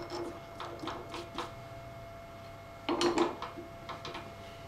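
Metal clicks and rattles of a tap being fitted into a milling machine's chuck and tightened by hand, with a louder cluster of clicks about three seconds in. A faint steady hum runs underneath.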